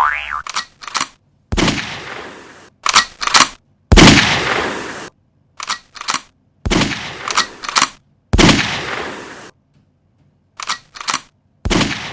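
Recorded gunshot sound effect: five single shots about two seconds apart, each with a long echoing tail, and two or three short sharp clicks between shots.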